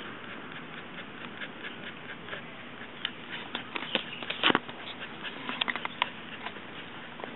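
Siberian Husky puppy chewing and tearing grass: irregular small crunching clicks over a faint steady hiss, coming thick and loudest in the middle.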